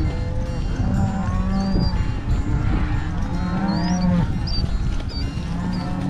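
Cattle mooing and bawling as the herd is driven, several calls overlapping one after another, some rising and falling in pitch, over a steady low rumble. A few short, faint high chirps sound in between.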